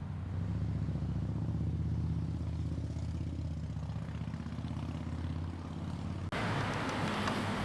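An engine running with a low, steady throb. About six seconds in, it cuts off abruptly to a broad rushing noise.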